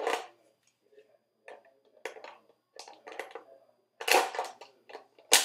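Hard plastic Nerf blaster parts being handled: irregular clicks, knocks and scrapes, loudest about four seconds in and ending with a sharp click.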